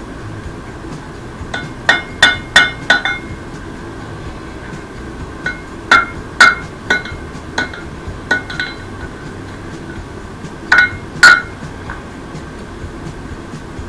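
Hammer blows on an anvil while forging rebar tongs, in short clusters of ringing metallic strikes: a quick run of five or six, then four, some lighter taps, and two last heavy blows.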